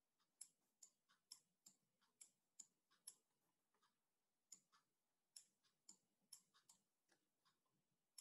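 Faint, irregular clicks from handwriting strokes on a digital whiteboard, about a dozen of them with a short pause in the middle, over near silence.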